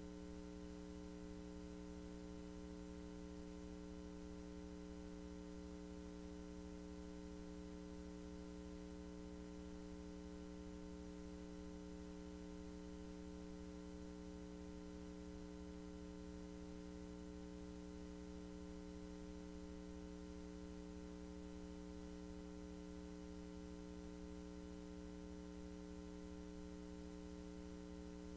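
Steady electrical hum: a low buzz that holds at the same pitch and level, with no other sound.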